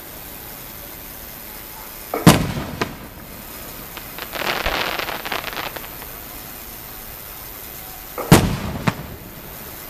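Aerial firework shells bursting: a loud boom about two seconds in and another about eight seconds in, each followed by a smaller crack and trailing off with echo. In between, a couple of seconds of dense crackling from the bursting stars.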